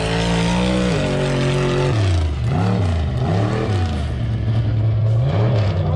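Off-road competition truck's engine revving hard: held high for about two seconds, then dropping and blipped up and down several times.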